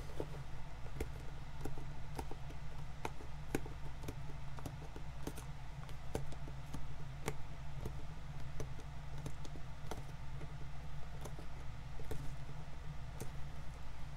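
Small, irregular clicks and ticks of old outsole stitching being picked out of a shoe's welt with a hand tool, a few a second, over a steady low hum.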